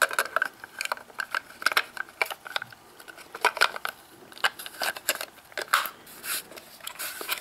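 Plastic battery carrier loaded with AA batteries clicking and rattling as it is pushed into the plastic pistol-grip handle of a Boots Comet 121 Super 8 camera: many irregular sharp clicks and clacks.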